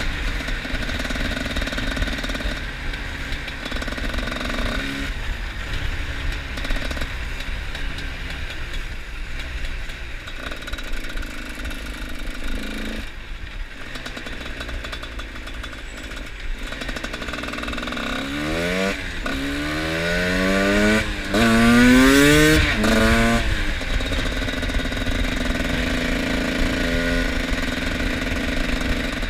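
Two-stroke trail motorcycle engine running along at a steady, fairly low pitch, then accelerating in three rising revs about two-thirds of the way in, the loudest part, before settling back to a steady run.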